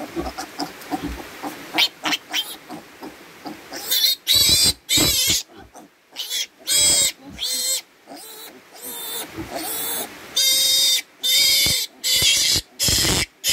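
Newborn piglet squealing, being held by the body for an injection. From about four seconds in, it gives a rapid series of loud, high-pitched squeals, each about half a second long, with only short breaks between them.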